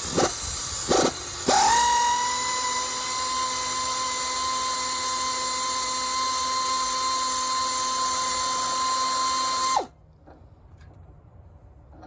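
A handheld electric power tool's motor blips twice briefly, then runs for about eight seconds with a steady, constant-pitched whine before cutting off suddenly. It is working on the exhaust header bolts of a 5.7 Hemi.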